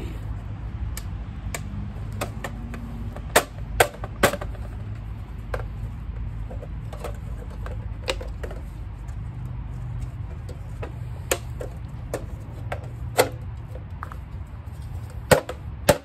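Irregular sharp metallic clicks and snaps as a sheet-metal dryer vent hood and its damper flap are bent and worked by hand with a tool, several close together about three to four seconds in and two near the end, over a steady low hum.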